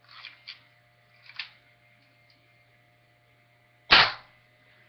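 Gamo Big Cat .177 break-barrel air rifle fired once with no pellet loaded, a single loud, sharp crack about four seconds in. A few faint handling clicks come before it, near the start.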